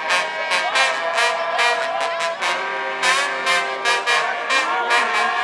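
Marching band trombone section playing a loud fanfare, with sliding pitch bends between notes and many short, sharply accented blasts; a lower note is held for about a second and a half midway through.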